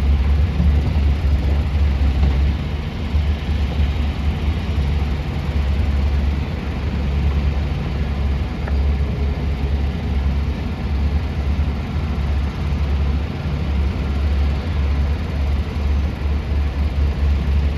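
Heavy diesel mining machinery, a large hydraulic excavator and dump trucks, running with a steady, loud low rumble.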